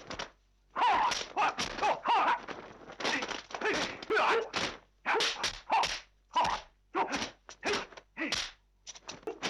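Kung fu fight sound track: a rapid string of short, sharp shouts from the fighters, about two a second, mixed with the swishes and smacks of blows.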